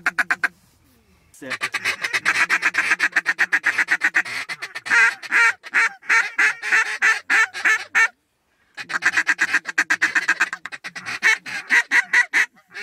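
Duck call blown in long runs of fast, clipped quacking notes, about ten a second, breaking off briefly just past the middle and then starting again.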